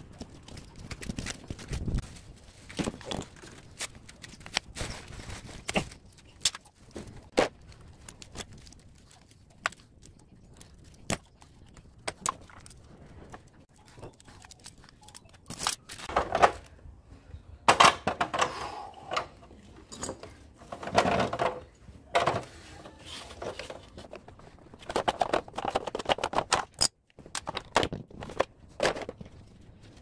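Scattered clicks, knocks and rattles of metal and plastic parts being handled and pulled apart by hand on concrete as a scrapped LG dehumidifier is dismantled, with louder spells of knocking and rattling in the second half as the fan motor is worked out of its plastic housing.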